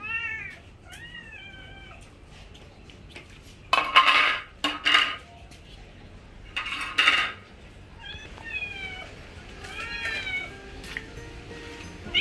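Several hungry cats meowing for food, with short rising-then-falling meows at intervals. Three louder, rougher bursts come about four, five and seven seconds in.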